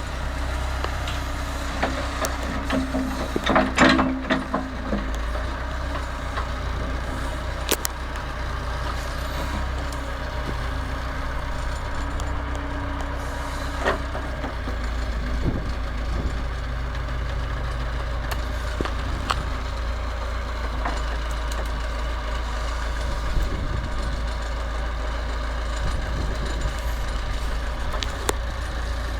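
Diesel engine of a Massey Ferguson 50HX backhoe loader running steadily, with a cluster of knocks about four seconds in and a few single clanks later.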